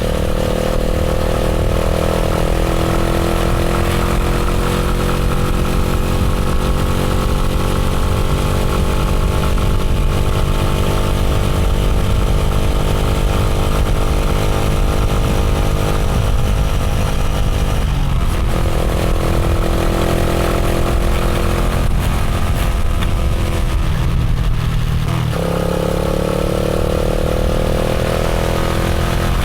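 Motorcycle engine running steadily. Its pitch sinks slowly for about fifteen seconds, shifts several times around the middle, and rises again near the end as the revs change.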